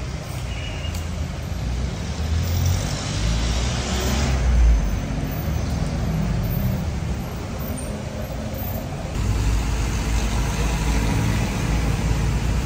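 Street traffic on a wet road: vehicle engines running and tyres hissing on the wet pavement, with a louder hiss swelling about two to four seconds in. From about nine seconds in a heavier low engine rumble sets in from the minibuses close by.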